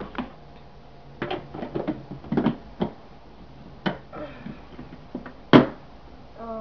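Handling noises: a string of irregular knocks and clicks, the loudest a single knock about five and a half seconds in.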